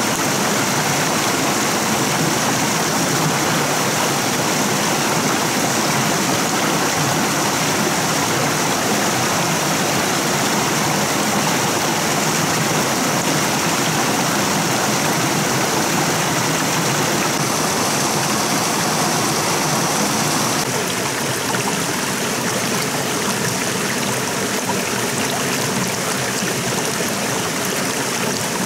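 Steady rush of a flowing stream, an even wash of water noise. It turns slightly quieter about twenty seconds in.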